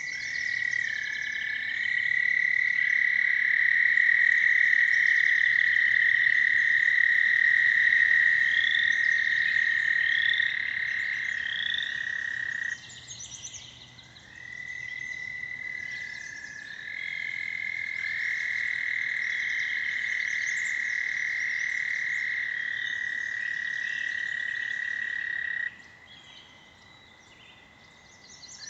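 Several American toads trilling: long, steady high trills that overlap at slightly different pitches, each held for many seconds. The chorus cuts off abruptly about halfway through and again near the end, and three short rising chirps sound above it in the first half.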